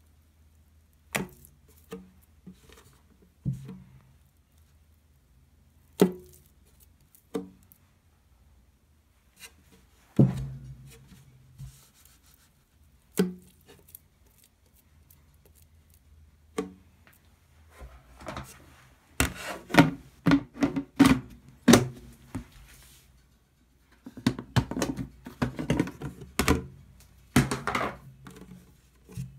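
Wet, high-hydration ciabatta dough being stretched and folded by hand in a plastic tub, with single soft knocks and slaps a few seconds apart. In the second half come quick clusters of plastic clicks and knocks as the tub's plastic lid is fitted on.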